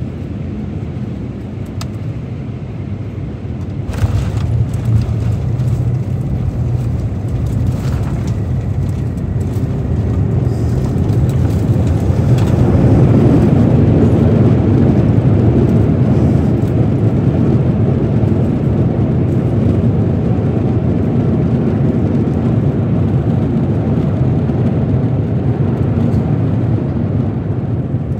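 Airbus A350-900's Rolls-Royce Trent XWB engines and airframe heard from the cabin during a landing on a wet runway. The wheels touch down with a thump about four seconds in. The engines then build to a loud reverse-thrust roar around twelve seconds in, which eases slowly as the aircraft slows.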